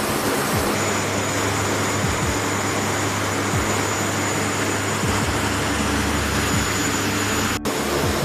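KC-130J turboprop aircraft engines running on the flight line: a loud steady rush of noise over a low hum, with a thin high whine coming in about a second in. The sound drops out for an instant near the end.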